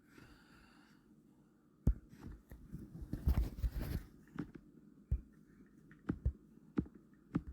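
Handling noise from a phone being held and tapped on its touchscreen: single sharp taps at scattered moments, with a brief run of rustling and knocking about three seconds in.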